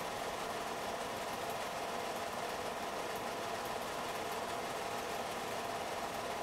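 A small motor running with a steady, even whir.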